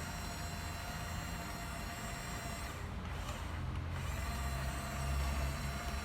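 Small electric drive motors and plastic gearboxes of a toy RC bulldozer whirring with a thin steady whine. The whine and hiss stop for about a second in the middle, then pick up again with a stronger low hum.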